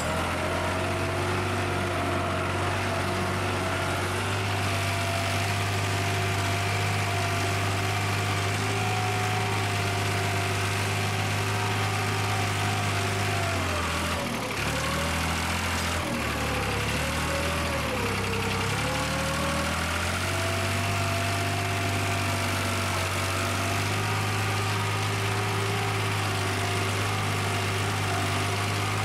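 A New Holland tractor's engine running steadily while it pulls a tine cultivator through tilled soil. Its note dips and wavers for a few seconds midway through, then settles back to an even pitch.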